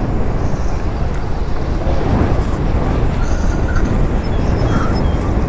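Steady wind rushing over the microphone of a camera carried on a moving e-bike, a continuous low noise with no break.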